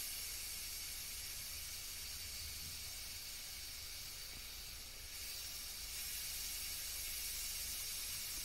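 Air hissing steadily out of the opened air-release valve on a water filter housing, bleeding trapped air as the housing fills under mains pressure after a cartridge change. The hiss gets a little louder about five seconds in.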